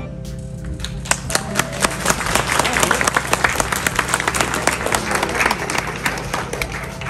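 Audience applauding, the clapping swelling about a second in and thinning out near the end, with music playing underneath.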